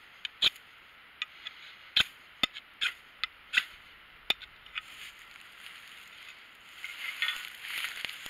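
A CPM 3V steel bowie knife scraped down a ferrocerium rod in sharp, separate strikes, about eight over the first five seconds, throwing sparks into dry grass tinder. The tinder then catches and crackles, louder near the end.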